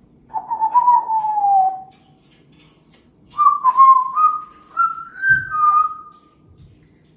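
African grey parrot whistling: one long note that sags in pitch as it ends, then after a pause a run of short joined notes that climb step by step and drop back at the end.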